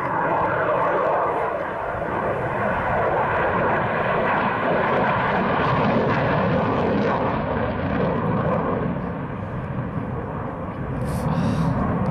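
Eurofighter Typhoon's twin EJ200 turbofan jet engines, a loud continuous roar with a faint whine in it as the jet flies its display. The roar eases a little in the later part, then swells again near the end.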